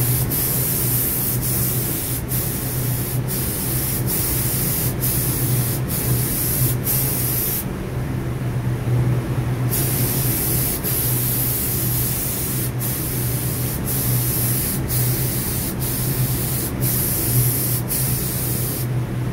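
Paint spray gun hissing in short spurts as its trigger is pulled and let go, with a longer pause of about two seconds near the middle, over a steady low hum.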